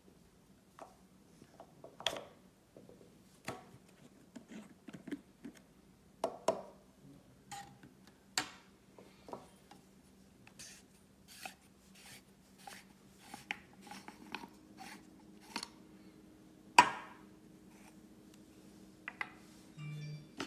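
Irregular small clicks and knocks of a STARESSO Classic portable espresso maker's hard plastic parts being handled and fitted together, with one sharper, louder click late on.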